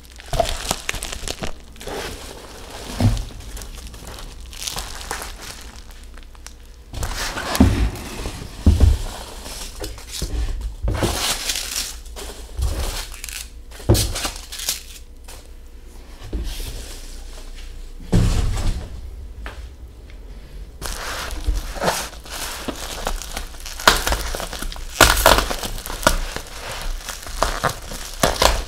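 Plastic bubble wrap crinkling and crackling as wrapped packages are handled, lifted out of a cardboard box of foam packing peanuts and set down on a table with a few dull thumps. The handling comes and goes irregularly, with short pauses between.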